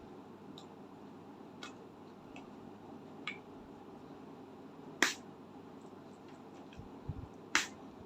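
A few sharp clicks and light taps over a faint steady room hum. The two loudest clicks come about five seconds and seven and a half seconds in, with a soft low thump just before the second.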